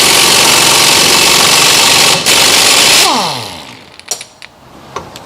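Power wrench running hard on a rear suspension link bolt for about three seconds, with a short break about two seconds in, then its motor winding down to a stop, followed by a few light clicks of tool handling.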